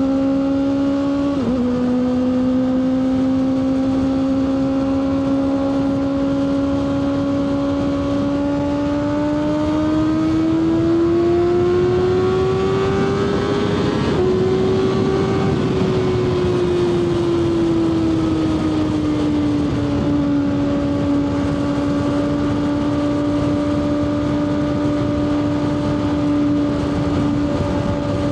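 Kawasaki ZX-6R 636 inline-four engine running at high revs under way: a quick upshift about a second and a half in, then the pitch climbs steadily as it accelerates, a short shift dip about halfway, and the revs ease back down to a steady cruise. Wind rush swells with the speed in the middle.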